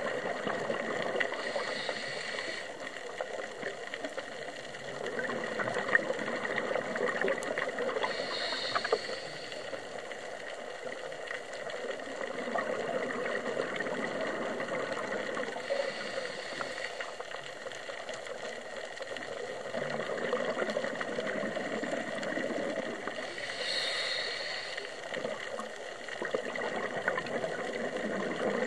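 Underwater sound of a scuba diver breathing through a regulator. A gurgling wash of exhaled bubbles swells about every seven or eight seconds over a steady hiss, with scattered faint clicks.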